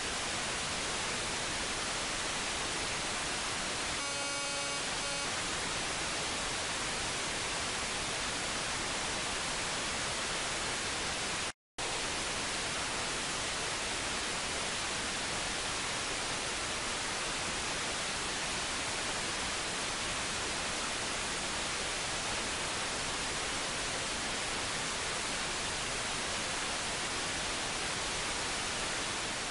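Steady radio hiss from a software-defined radio tuned near 137.1 MHz in wide FM mode to the Meteor-M2 weather satellite's digital QPSK LRPT downlink. A few faint brief tones sound about four seconds in, and the sound cuts out for a split second about halfway through.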